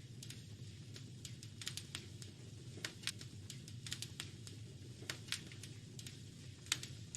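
Fireplace fire crackling: irregular sharp pops and snaps, several a second, over a steady low rumble, with one louder snap near the end.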